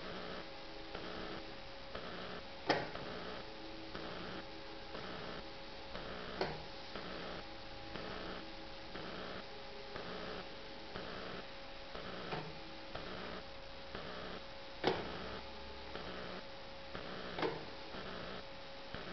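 Steady electrical hum with a regular ticking, about one tick every two-thirds of a second. Five sharper clicks or knocks come at uneven intervals, the loudest about three seconds in and near the three-quarter mark.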